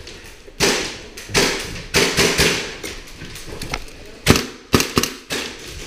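A series of irregular sharp knocks and thuds, about eight of them, each with a short ring-out, the loudest about four seconds in.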